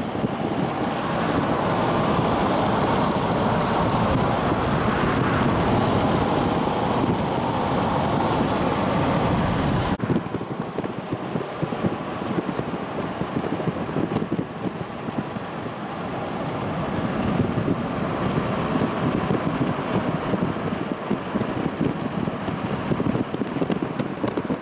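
Road and wind noise of a car driving along. About ten seconds in the sound changes abruptly, the low rumble dropping away and the noise becoming thinner and more uneven.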